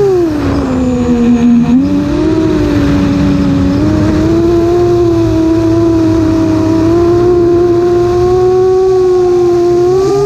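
Onboard recording of an RC aircraft's electric motors and propellers whining. The pitch drops in the first two seconds as the throttle eases, then rises a little and holds steady while it flies low.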